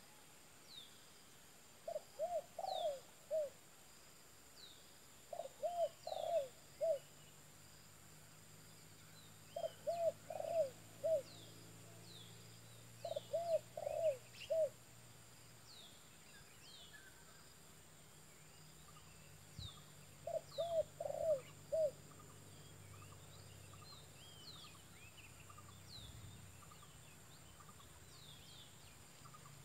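Spotted dove cooing: five phrases of four or five rounded coos each, a few seconds apart, with a longer gap near the end. Small birds chirp briefly and high-pitched in between.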